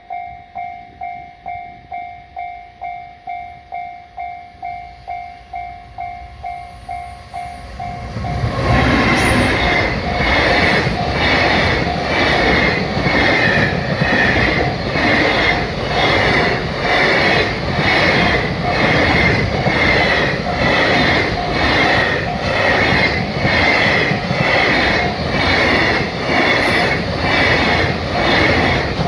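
Japanese level-crossing warning bell dinging about twice a second. About eight seconds in, a long train passes close by, its wheels clattering over the rail joints in a steady repeating rhythm, with the bell still ringing underneath.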